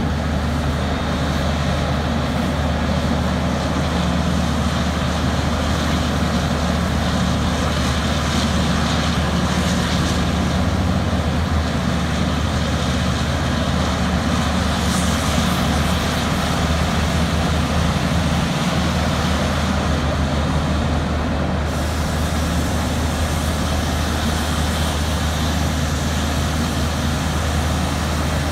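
Heavy diesel engines of a mining front shovel and a haul truck running steadily as the shovel digs and swings: a constant deep hum under a loud machine drone.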